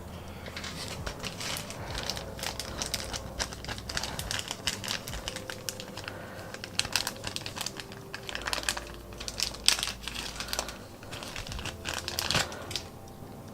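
Plastic packaging crinkling and rustling in irregular bursts of small crackles and snaps as small toy gun parts are handled and unpacked.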